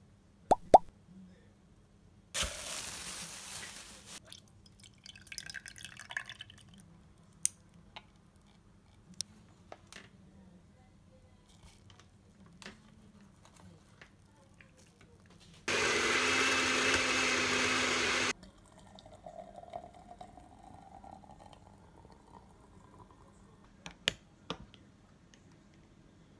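Small clinks and a pour as ingredients go into a glass blender jar. About two thirds of the way in, the countertop blender runs steadily for about two and a half seconds, blending a thick yogurt-and-banana smoothie, then cuts off.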